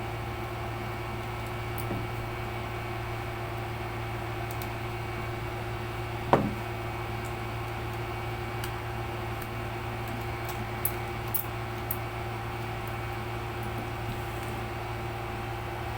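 Steady hum with a single knock about six seconds in and a few light clicks a little later, from hands and tools working on a laptop's case during disassembly.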